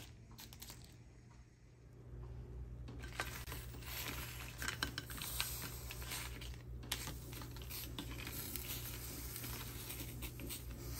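Brittle dried pasilla chiles crinkling and clicking as they are handled and laid into a dry frying pan to toast, many small scattered crackles, over a steady low hum that starts about two seconds in.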